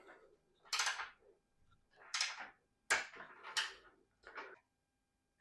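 Bike parts and tools being handled on a workbench: about five short scrapes and rustles, each under a second.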